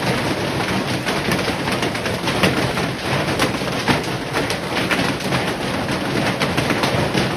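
Hail and heavy rain pelting down: a dense, steady clatter of many rapid impacts.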